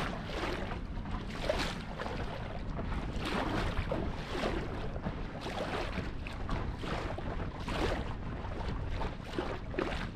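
Lake water splashing against the hull of a moving boat in quick, irregular splashes, over a steady low rumble.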